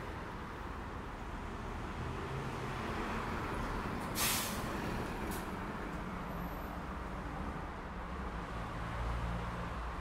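Street traffic, with engines running as a steady low rumble. About four seconds in, a heavy vehicle's air brakes release a short, sharp hiss, and a second fainter hiss follows about a second later.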